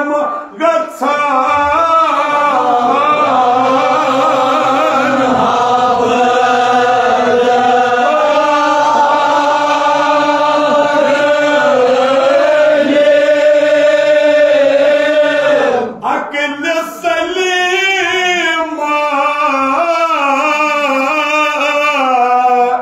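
Kashmiri marsiya, a Shia elegy for Muharram, chanted by men's voices in long, drawn-out melodic lines. There is a brief break about two-thirds of the way through, then the chant resumes.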